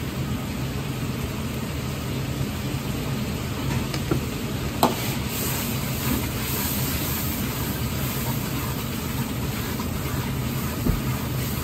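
Gas wok burner running with a steady rushing roar under a wok of boiling sauce, with a few sharp clicks of the metal ladle against the wok about four and five seconds in and again near the end.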